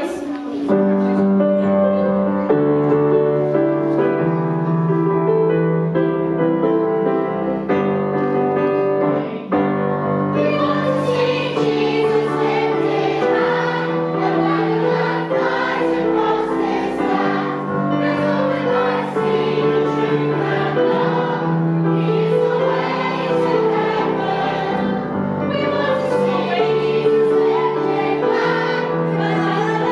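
A Christian children's song with a choir of voices singing over instrumental backing. It opens with held chords, and the voices come in about ten seconds in.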